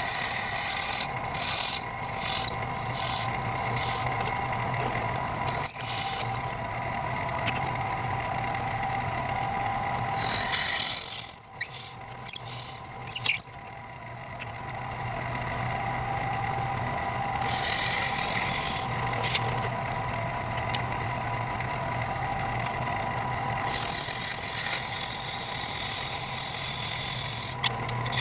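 Electric woodworking machine running steadily with a motor whine, cutting or drilling into pen blanks in several stretches of high, hissy noise.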